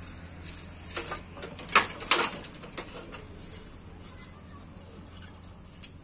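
Wooden handloom clacking as the weft is woven: scattered wooden knocks from the shuttle and the beater, the two loudest close together about two seconds in, over a low steady hum.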